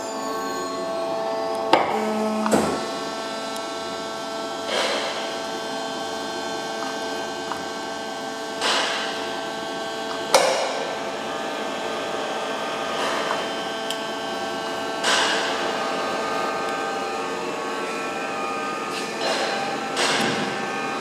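LUCAS VBU 400 hydraulic trimming and beading machine running with a steady hum of several tones. Sharp knocks from the machine come at irregular intervals of a few seconds.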